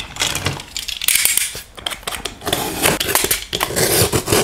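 A few clicks and knocks as a box cutter is picked up. Then, from about two and a half seconds in, the blade cuts through the sealing tape on a cardboard box with a steady scratchy noise.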